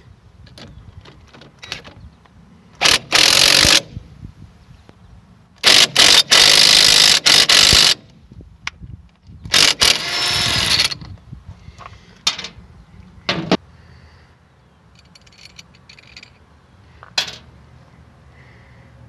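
Cordless impact gun hammering in three bursts, the middle one the longest, as it runs a nut down a knurled wheel stud to draw the stud into the wheel hub's flange. A few sharp metal clicks and knocks follow.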